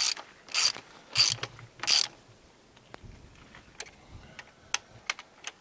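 Socket ratchet wrench clicking as it is swung back and forth on a bolt of a tractor's rear gearbox housing: four loud rasping ratchet strokes about two-thirds of a second apart, then a few lighter single clicks.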